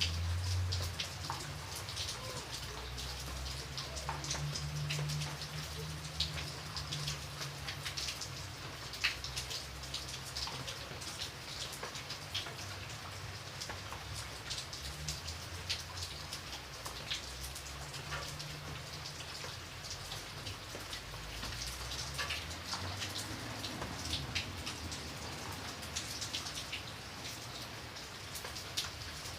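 Steady rain, with many individual drops ticking sharply on a hard surface. A low rumble underneath swells and fades.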